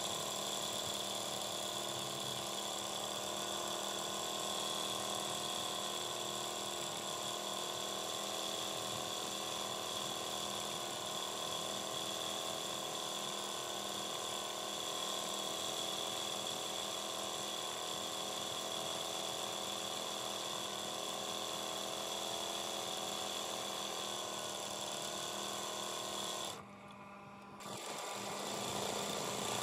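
Embroidery sewing machine running steadily, its needle stitching fast as the hooped cloth is guided by hand, the motor's pitch wavering slightly. Near the end it stops for about a second, then starts up again.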